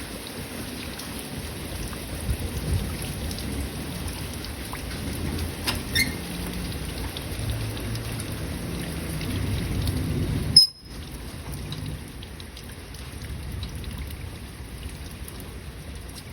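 Steady heavy rain with thunder rumbling low and building over several seconds. About two-thirds of the way through there is a sharp click, the sound cuts out for a moment, and then the rain carries on with the rumble gone.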